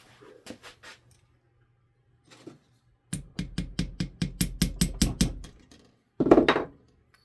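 Small hammer rapidly tapping a pin punch to drive a stubborn pin out of a pocket knife: a quick run of about a dozen light metallic taps, then one heavier knock a second later.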